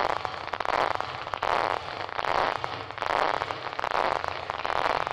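Audio of neurons in a monkey's motor cortex picked up by intracortical electrodes: dense crackling of spikes that swells into bursts about every three-quarters of a second as the animal walks.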